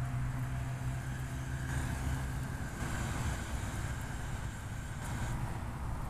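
Steady low motor hum, with a rushing noise that swells from about two seconds in and drops back a little after five seconds.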